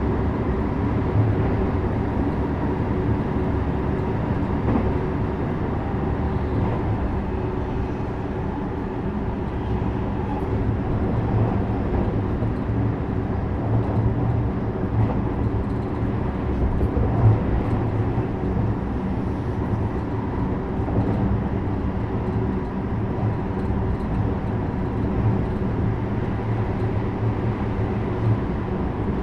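JR West 321 series electric multiple unit heard from inside the car while running at a steady speed: an even rumble of wheels on rail with a faint steady hum through it.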